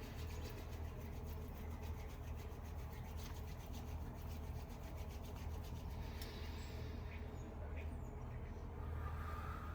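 A fast, evenly repeating rubbing noise over a steady low hum; the rubbing stops about six seconds in.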